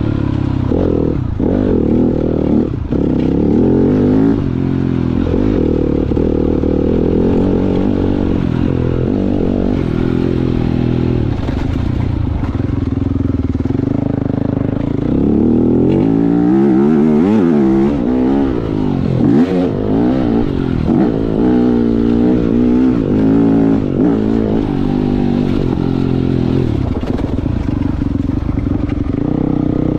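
Single-cylinder four-stroke motocross bike, a 2018 Yamaha YZ250F, ridden hard with the engine revving up and down. The pitch rises and falls over and over, most rapidly in the middle of the stretch.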